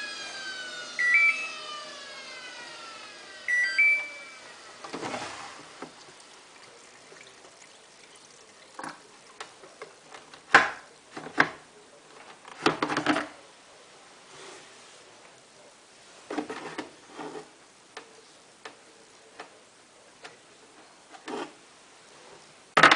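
Samsung WF8804RPA washing machine drum spinning down, its motor whine falling in pitch and fading over the first few seconds, with the control panel beeping twice. After that come scattered short knocks and clicks.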